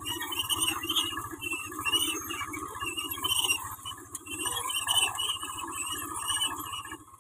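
A tractor's diesel engine running steadily as it pulls a groundnut seed drill, with short high-pitched sounds repeating over it.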